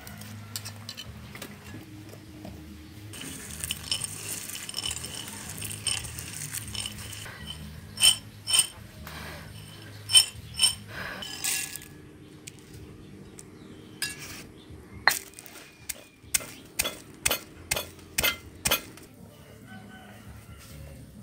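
Scattered clinks and knocks of cooking utensils and dishes, then a quicker run of about ten sharp knocks near the end.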